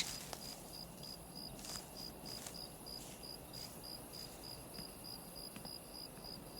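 An insect chirping steadily, about three short high chirps a second, over a faint high hiss of garden ambience.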